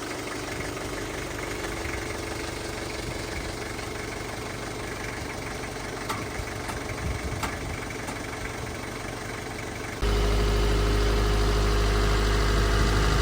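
Truck engine running at idle after a jump start from a flat battery. About ten seconds in the sound suddenly becomes louder, with a strong deep hum.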